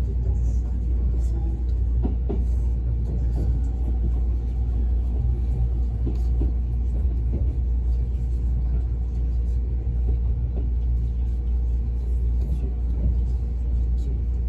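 Steady low rumble of an E657 series electric train running, heard from inside the passenger cabin, with a few faint clicks.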